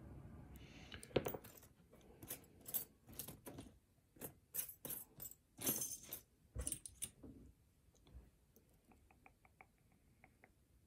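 Metal lock picks and tension tool clinking and scraping against a pin-tumbler lock, with several sharp clinks, then a run of small, light ticks near the end as the pick works the pins.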